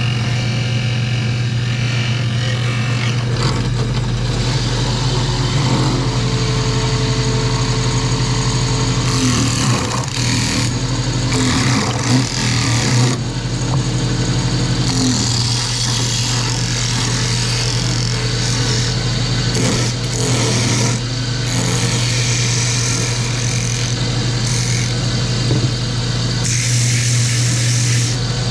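Metal lathe running, its motor giving a steady low hum. Several stretches of hissing, scraping noise come and go over it, typical of a cutting tool taking metal off a turned part.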